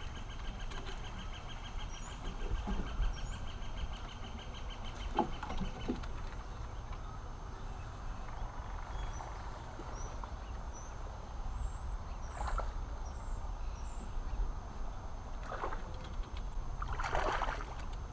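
Fishing reel being wound in, with a fast, even ticking for the first few seconds, over wind rumbling on the microphone. Near the end a hooked bass splashes at the surface as it is reeled to the dock.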